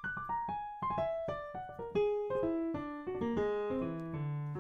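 Piano: the right hand plays a quick run of single notes, augmented-triad arpeggios stepping mostly downward, over a low left-hand chord, as a jazz line over a dominant 7th chord. Near the end several notes sound together as a chord.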